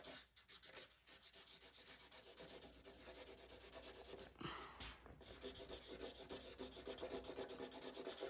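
Brown Sharpie felt-tip marker scribbling on paper in quick back-and-forth strokes as an area is coloured in.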